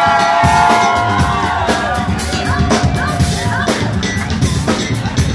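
Live band playing through a club PA: long held high notes over drums and bass, the held notes stopping about three and a half seconds in while the drums carry on.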